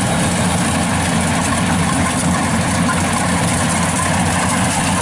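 Kubota DC-95 rice combine harvester running steadily while it cuts rice, its diesel engine and threshing machinery making an even, unbroken mechanical noise.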